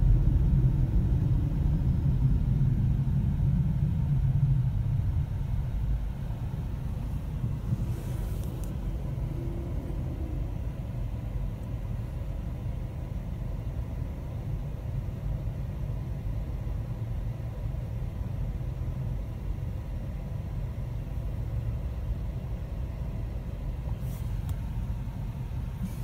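Car cabin noise: the low road and engine rumble fades over the first five seconds as the car slows, then settles to a steady, quieter hum while the car sits stopped in traffic.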